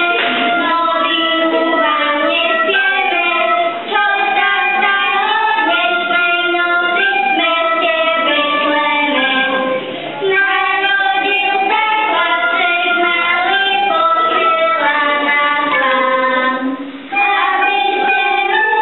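A group of children singing a Christmas carol together, with brief breaks between phrases.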